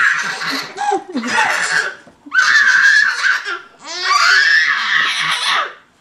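A baby laughing hard in four high-pitched bursts with short breaks between them.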